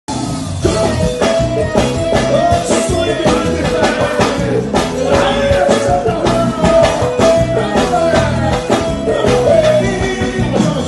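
Live forró band music played loud through a PA, with a steady beat and sung vocals.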